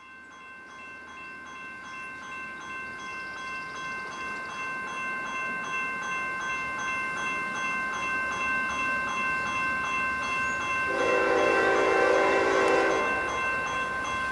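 Rails ringing with several steady high tones that grow louder as a freight train approaches. A locomotive horn sounds for about two seconds near the end.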